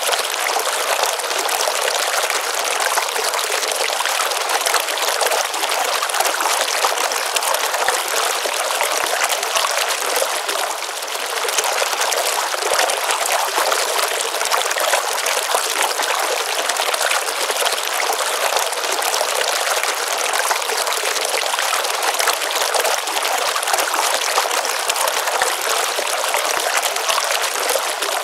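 Water of a small pond stream running and splashing steadily, a bright continuous trickling rush with no deep rumble.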